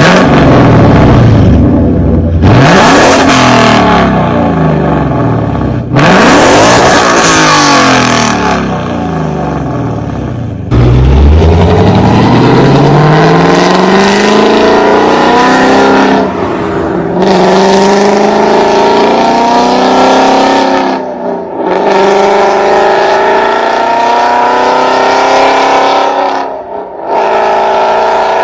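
Lamborghini supercar engine revving and accelerating, loud, its pitch climbing and then dropping abruptly several times.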